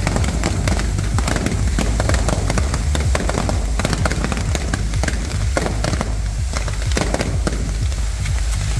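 Maltese festa ground fireworks: a large spinning fireworks wheel throwing sparks, with dense, rapid crackling and sharp pops throughout.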